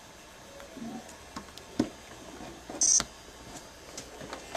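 Faint handling noise with a few soft clicks and a brief scratchy rustle about three seconds in.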